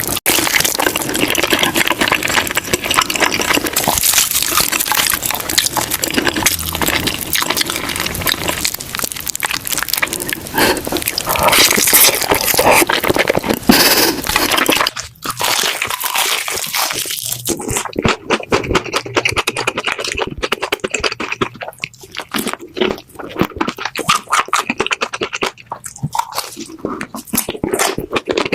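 Close-miked biting and chewing of crispy fried chicken: dense, continuous crackling crunches of the fried crust. About halfway through the crunching briefly drops out, then goes on duller and more broken into separate crunches.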